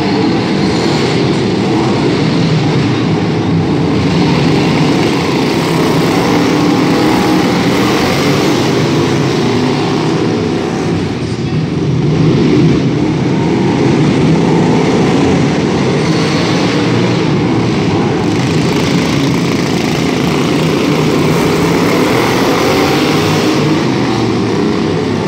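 Several racing riding lawn mowers' small engines running together at speed, a steady loud drone that dips briefly about halfway through.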